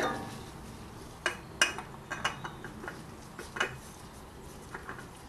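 Scattered light clicks and knocks of metal handling as a new spin-on oil filter is screwed onto the engine by gloved hand.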